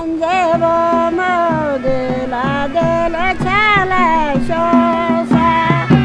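An elderly Brokpa woman singing a folk song solo, holding long wavering notes that bend up and down. Drum beats come in near the end.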